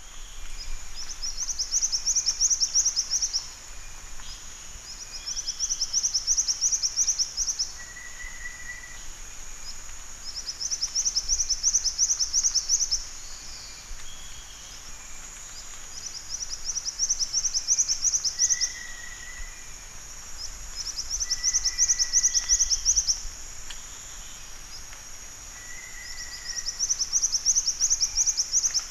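Black-winged flycatcher-shrike calling: six high, rapid trills of about two seconds each, repeated every four to five seconds, with a few short lower notes between them. A steady high tone runs underneath.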